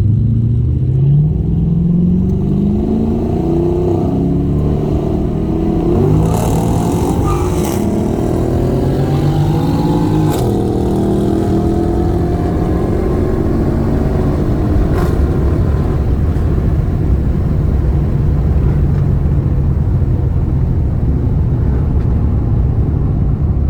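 Holden VX Commodore SS's 5.7-litre LS1 V8 with an aftermarket exhaust accelerating hard through the gears. The pitch climbs and drops at each shift over the first ten seconds or so, then holds steadier. A few sharp clicks come between about six and fifteen seconds in.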